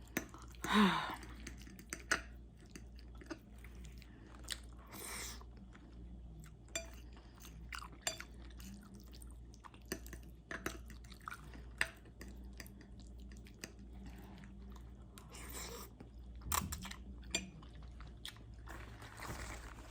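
Close-miked chewing of spaghetti with meat sauce: wet mouth clicks and smacks scattered throughout, with a louder sound about a second in.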